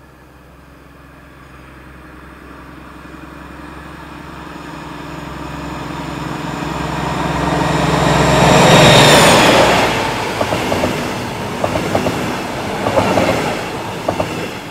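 A DB class 218 diesel-hydraulic locomotive hauling double-deck coaches approaches and passes: its engine drone grows steadily louder for about nine seconds, and a high whine drops in pitch as the locomotive goes by. The coaches' wheels then clatter over the rail joints in a quick run of clicks.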